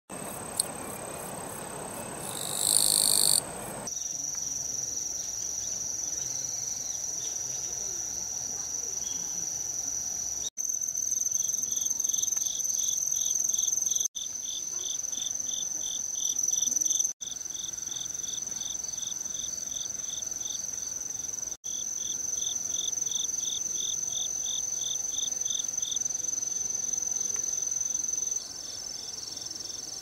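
Chorus of autumn crickets and other singing insects: a steady high continuous trill, with a pulsing chirp of about five pulses a second over it for much of the time. A short, louder rasping burst comes about three seconds in, and the chorus drops out briefly several times where clips are joined.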